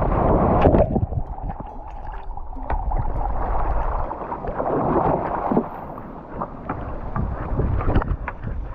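Water splashing and sloshing as a dog wades through a shallow creek, heard from a camera strapped to its back, with a rumble of movement on the microphone. The splashing is loudest in the first second. Short scattered knocks and scrapes follow in the second half as the dog carries a stick out over the rocks.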